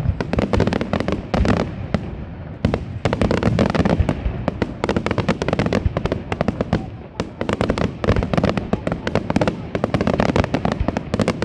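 Aerial fireworks display: a dense, continuous run of sharp cracks and booming shell bursts, many per second, over a low rumble.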